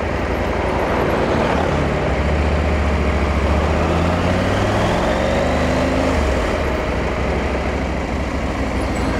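KTM 890 SMT motorcycle's parallel-twin engine running in traffic over a steady rush of road and wind noise. The engine note rises for a few seconds as the bike pulls away, then drops back about six seconds in.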